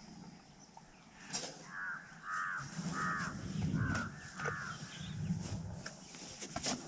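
An animal calling: five short, harsh calls in quick succession starting about two seconds in, over a low rumble, with a few sharp clicks.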